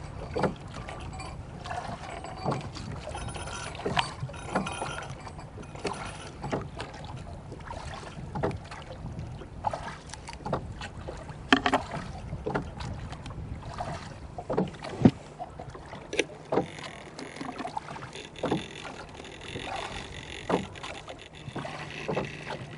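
Irregular light knocks and clicks of trolling tackle, the lines and baits, being wound up and stowed in a wooden tackle box in a small boat, over a steady low hum.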